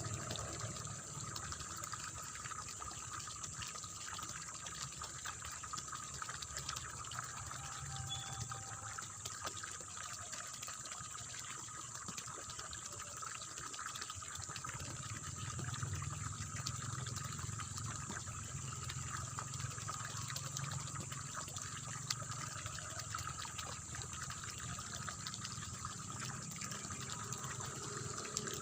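Water running and splashing steadily in a rice-field channel, a continuous babbling flow. A steady high-pitched drone sits over it throughout.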